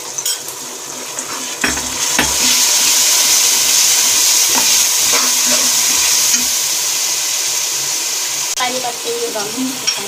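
Spiced yogurt masala poured into hot oil with fried onions and tomatoes, setting off a loud sizzle about two seconds in that slowly dies down. A steel spatula stirs and scrapes the metal pan, with scattered clicks.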